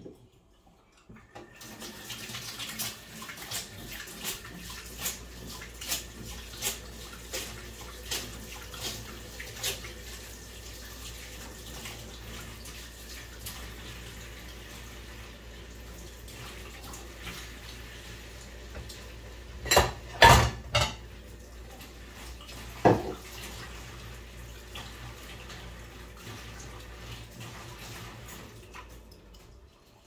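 LG F4V310SNEH direct-drive front-loading washing machine starting its cycle: water running in to fill the drum, over a steady low hum, with small clicks early on. A few loud knocks come about two-thirds of the way through.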